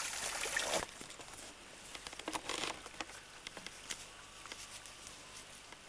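A small stream running over stones, cut off abruptly under a second in; after that only faint scattered ticks and rustles.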